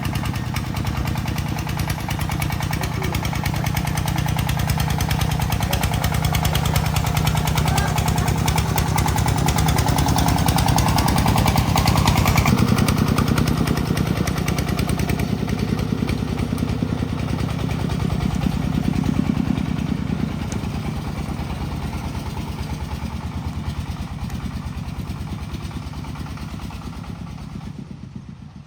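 A motor vehicle engine running steadily, growing louder toward the middle, changing pitch at about twelve seconds in, then easing off and fading out near the end.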